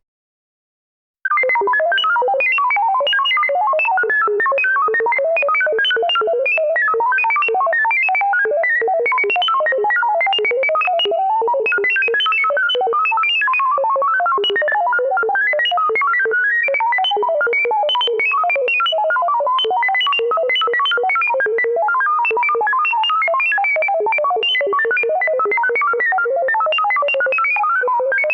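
Vintage sci-fi spaceship computer sound effect: a rapid, unbroken stream of electronic beeps jumping randomly in pitch, starting about a second in.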